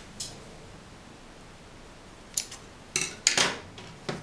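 Scissors cutting crochet yarn and being put down on the hard tabletop: a few sharp metallic clicks, most of them clustered about two and a half to three and a half seconds in.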